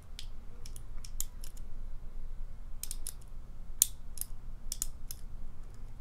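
Scattered light metallic clicks and ticks of a Sparrows short hook pick working the pins of a small pin-tumbler plug lock under a tension wrench, with one sharper click a little before four seconds in.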